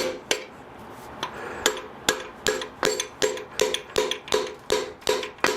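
Hammer blows on a seized piston in a rusty 350 Chevy small-block: about a dozen sharp, ringing metal strikes in a steady rhythm, nearly three a second after the first few.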